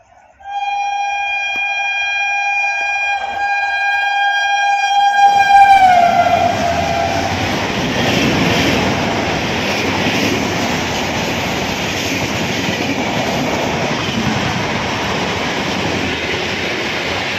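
An Indian Railways express train runs through the station at speed. Its horn sounds one long blast of about five seconds, and the pitch drops as the locomotive passes. The coaches then rush and rattle past on the rails.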